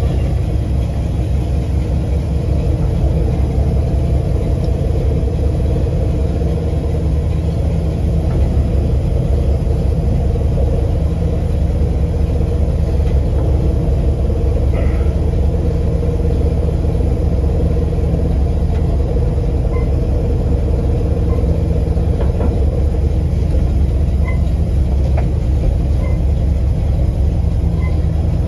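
Chevrolet C10 pickup's engine running steadily, heard close up over the open engine bay with the hood off.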